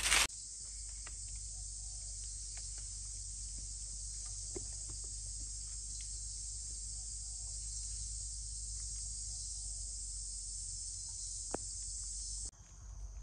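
Steady, high-pitched insect chorus in forest, with a faint low hum and a few soft clicks; it cuts off abruptly near the end.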